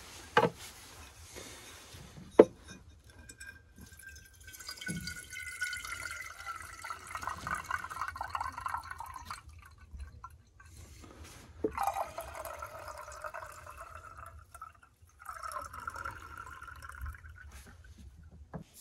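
Water running from a plastic jug's spigot into a small stainless steel moka pot base, in three pours, the first the longest, with the pitch of the filling vessel ringing through the stream. A couple of sharp metal clinks come before it as the pot is handled.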